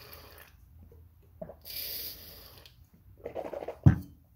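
Drinking from a sports water bottle through its spout: breathy sipping and swallowing sounds, then a single sharp knock just before the end as the bottle is set down on a hard surface.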